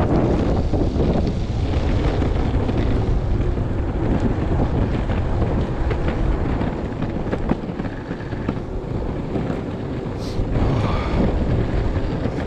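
Strong wind buffeting the microphone during a ride, a steady heavy rumble with a few light ticks.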